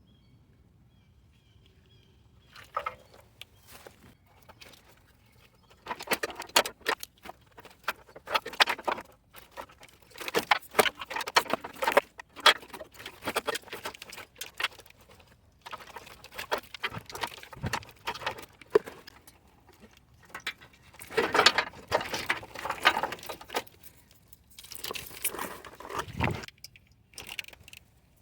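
Hand work on an engine wiring harness: bursts of rapid metallic clicking and rattling, with pauses between them, from tools and the harness's plastic connectors and wires being handled. It starts about three seconds in.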